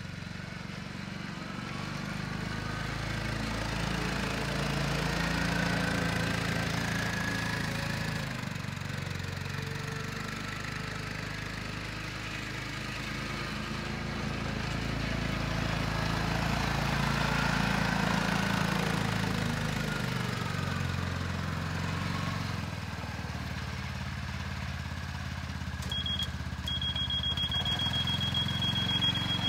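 Linhai Proma 500 ATV's single-cylinder four-stroke engine running as it is driven around, its pitch rising and falling with the throttle, growing louder and fainter twice as it passes close and moves away. Near the end a steady high-pitched beep starts and holds.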